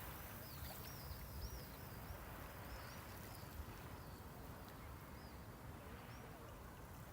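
Gentle sea waves washing on the shore as a steady hiss, with small birds chirping repeatedly over it through the first half.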